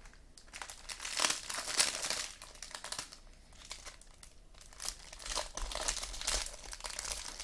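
Trading card pack wrapper being torn open and crinkled by hand, in two spells of crackling.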